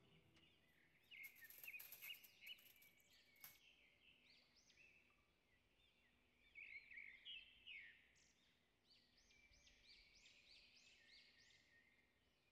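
Quiet handling sounds: a few sharp crinkles of aluminium foil in the first few seconds as the chicken and vegetables are tipped onto it, with faint high chirping notes recurring through the rest.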